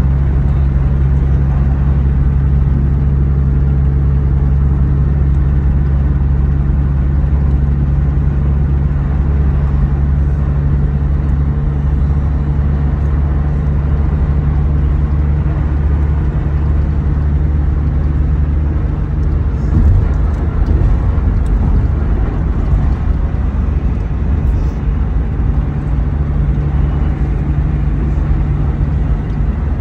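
Steady low engine and tyre rumble inside a van's cabin while cruising at highway speed, with a brief knock about twenty seconds in.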